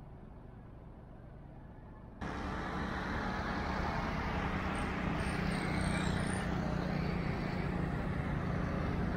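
A car driving, with steady engine hum and road noise that cuts in abruptly about two seconds in after a quieter stretch of background noise.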